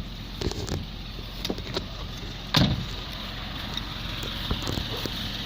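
Holden VE Commodore's 3.0-litre LFW V6 idling steadily, with a few light knocks and one louder thump about two and a half seconds in.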